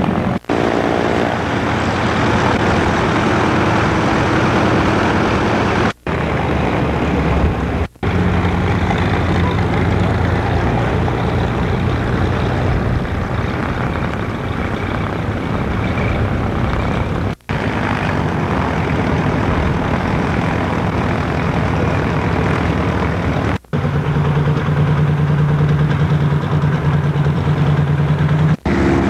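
Propeller aircraft engines running as light planes taxi, a continuous drone broken by several brief silent gaps. A strong steady low engine note comes up in the last few seconds.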